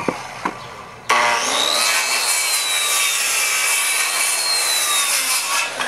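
Power saw cutting: a steady, loud hiss with a faint whine that rises and falls slightly, starting abruptly about a second in and stopping near the end.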